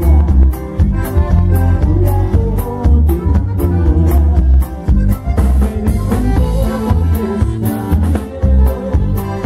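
Live conjunto band playing Latin dance music, with a heavy bass line and drums keeping a steady beat.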